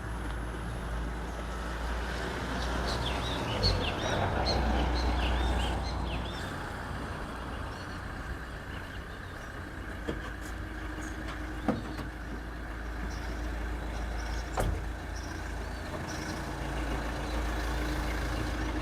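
Street ambience with a motor vehicle's engine rumbling. A cluster of high chirps comes about three to six seconds in, and there are a few sharp clicks later on.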